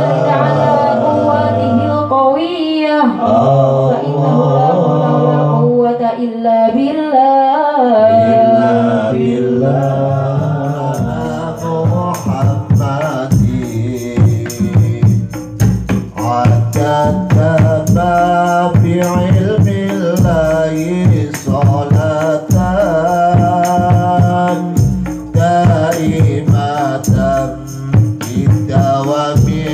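Sholawat devotional singing, at first a sung line with held, wavering notes; about ten seconds in a rebana ensemble enters under the voice, with frame drums (terbang), kendang and the jingling kecer cymbals playing a steady rhythm.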